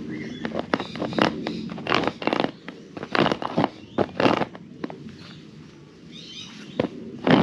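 Boots stepping and shifting on plastic MAXTRAX recovery boards fitted with bolt studs, giving irregular knocks and scuffs about once a second over a low steady hum.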